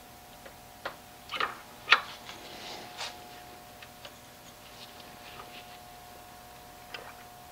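A few scattered clicks and taps, the sharpest about two seconds in, as an old valve is pressed against the piston of a brake master cylinder during bench bleeding. A faint steady hum runs underneath.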